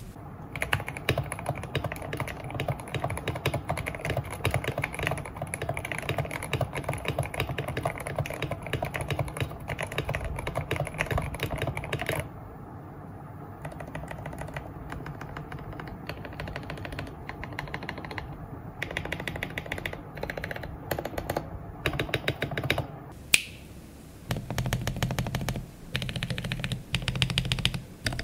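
Fast typing on a mechanical keyboard, played as a before-and-after comparison of its switches unlubed and lubed. The keystrokes come in a dense rapid stream, then turn quieter and sparser about halfway through. They end in short bursts with a deeper, fuller sound, with one sharp single click among them.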